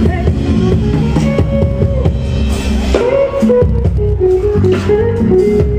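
A live band playing amplified music, with guitar, bass and drums.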